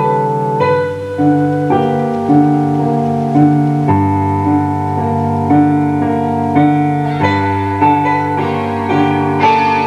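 Live band keyboards, keytar and synthesizer, playing electric-piano-like chords that change every half second to a second, with an accented pulse about twice a second. Brighter high notes come in near the end.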